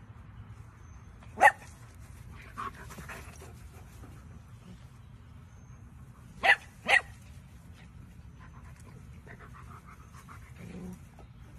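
Dog barking: three short sharp barks, one about a second and a half in and two in quick succession about six and a half seconds in.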